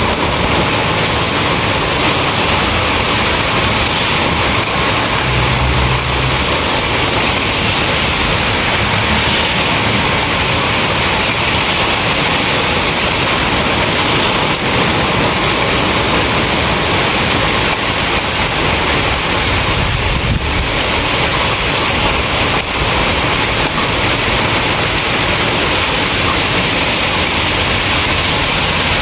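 Steady, heavy rain falling, an even hiss with no breaks.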